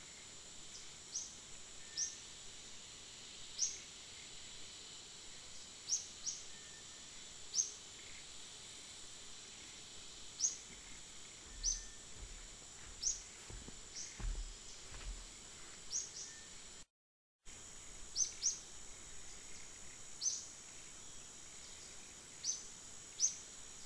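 Outdoor ambience: a steady high insect drone with a bird's short, high chirps repeating every second or two. A few low thumps come around the middle, and the sound drops out for about half a second about two-thirds of the way through.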